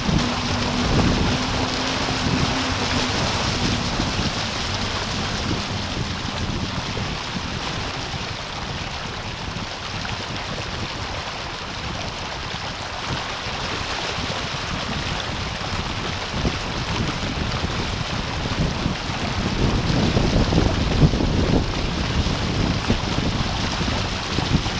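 Wind buffeting the microphone and water rushing and splashing along the hull of a Hobie Tandem Island sailing trimaran moving at speed. The rush eases off in the middle and builds again towards the end.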